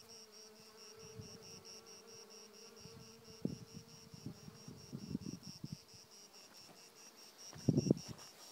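Honeybees foraging on flowering wild thyme, one buzzing with a steady hum for the first four seconds or so. A high chirp pulses evenly underneath, about four or five times a second, and a few soft rustles and knocks come in the second half.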